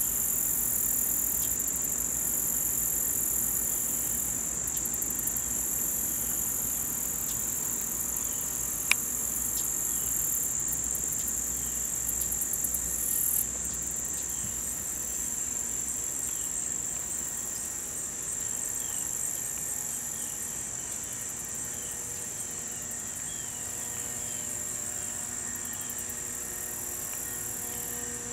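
Steady high-pitched insect chorus of crickets, trilling without a break, with faint short chirps repeating from about a third of the way in and a single sharp click about nine seconds in. A faint low hum creeps in near the end.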